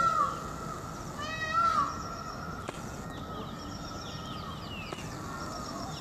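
Indian peafowl calling: loud, repeated calls, each rising then falling in pitch, one at the start and another about a second and a half in, with a fainter one near the end. Small birds chirp faintly in between.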